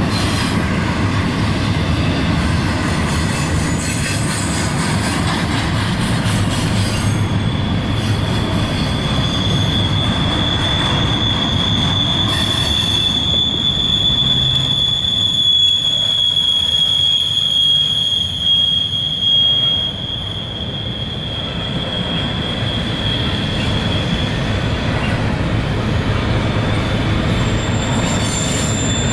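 Double-stack intermodal freight cars rolling past with a steady low rumble of wheels on rail. A high, thin wheel squeal sets in about a quarter of the way through, holds through the middle and fades out near the end, typical of wheel flanges grinding as the train crosses over from one track to the other.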